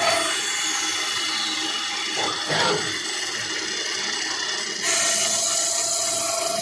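Citizen Cincom L20 Swiss-type CNC lathe machining brass: steady machine noise. A whine falls in pitch over the first two seconds, and a louder high whine with a steady tone starts about five seconds in.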